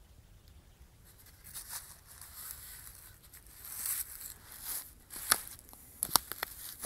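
Crackling rustle of dry leaves and hand-held handling noise, starting about a second and a half in, with a few sharp clicks in the last two seconds.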